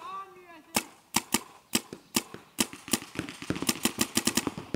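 Paintball markers firing: sharp, irregular pops, single shots at first, then a quicker string of shots about three and a half seconds in.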